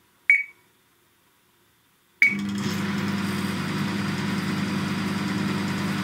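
Touch keypad of an Elektrohelios HC776 microwave oven beeping once, then a second beep about two seconds in as the oven starts and runs with a steady hum over a rushing fan noise. It sounds rather good, with no horrible magnetron sounds now that the arc-burnt contact has been cleaned.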